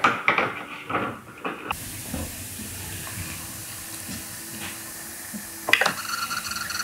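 Steady hiss of pressurised gas and blix spraying out of a Jobo film-developing tank, starting abruptly about two seconds in: the ECN-2 bleach-fix has built up pressure inside the sealed tank.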